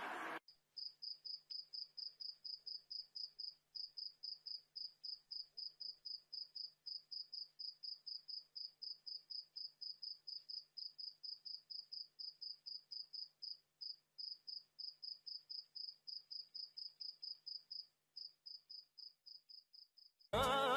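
A cricket chirps steadily, about three to four short high chirps a second, with a few brief breaks. A short hiss cuts off at the very start, and loud music starts near the end.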